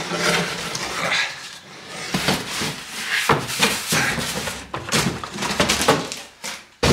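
A hard plastic Milwaukee Packout top box being pulled out of its cardboard packaging: uneven rustling, scraping and knocking, ending in a sudden loud thump.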